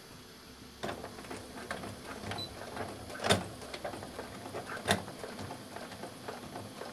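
Domestic sewing machine topstitching, a rapid, even ticking of the needle that starts about a second in and runs steadily, with two louder clicks around the middle.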